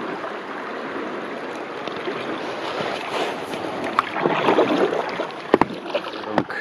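Water rushing and splashing around a kayak at the outflow of a small concrete weir, with paddle strokes swelling the splashing partway through and a few sharp knocks near the end.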